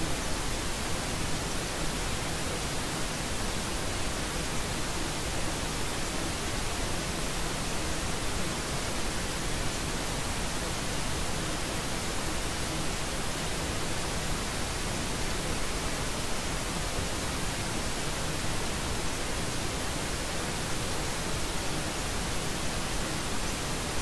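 Steady white noise: an even, unchanging hiss across the whole range, with no tones or events in it.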